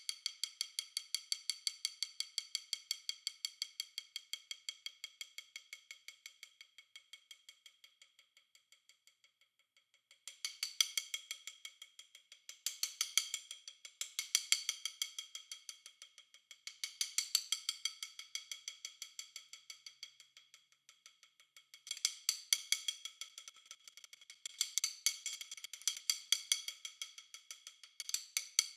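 Snare drum played with fast, even stick strokes with a bright, ringing metallic edge. The strokes fade slowly from loud to very soft over the first nine seconds, then rise and fall in a series of short swells.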